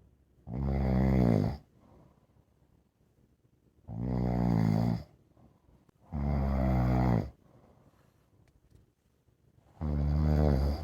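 Senior pit bull snoring in its sleep: four loud, pitched snores, each about a second long, with quiet pauses between them.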